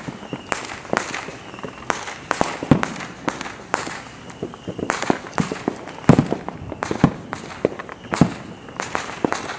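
Fireworks going off around the neighbourhood: a rapid, irregular string of sharp bangs and pops, some near and some distant. The loudest bang comes about six seconds in.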